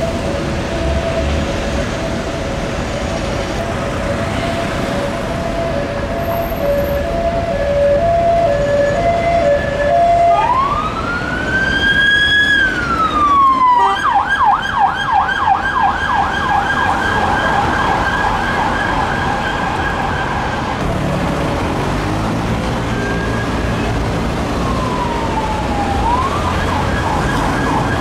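Police car siren (RGS MCS-32 on a 2017 Peugeot 308 SW) changing through its tones: a hi-lo two-tone for about the first ten seconds, then a single wail that rises and falls, then a fast yelp. The siren drops back for a few seconds, then gives a falling glide and returns to the yelp near the end.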